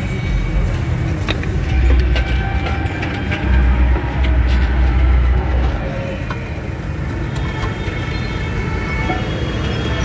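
Low rumble of a motor vehicle running close by, swelling briefly about two seconds in and again for about two seconds from the middle, with scattered light metallic clicks of a disc-brake caliper and pads being handled.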